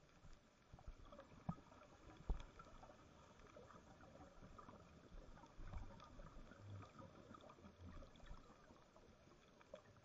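Faint, muffled underwater ambience picked up through a camera housing, with scattered faint clicks and a few short soft knocks, the loudest about two seconds in.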